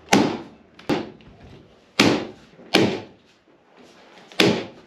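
Nail gun firing 3/8-inch stainless steel staples, five sharp shots at uneven intervals.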